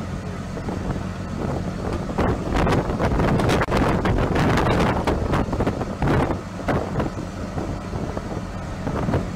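Wind buffeting the microphone in uneven gusts, over a steady low machine hum.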